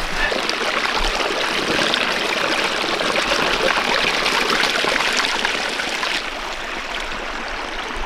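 Shallow creek running and trickling over rocks, a steady rushing hiss that turns quieter about six seconds in.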